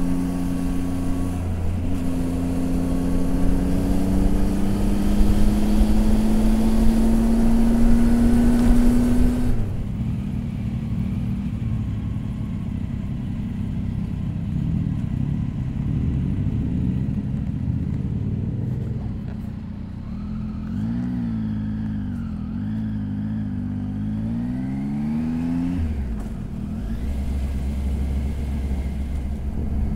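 Triumph Tiger 800 XRX's three-cylinder engine on the move. The revs climb steadily for about ten seconds, with a brief dip near the start. Then the throttle closes and it runs quieter off-throttle; later the revs rise and fall several times before settling to a low steady drone.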